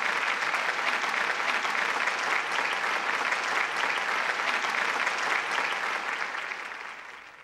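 Audience applauding, a steady patter of many hands that fades out near the end.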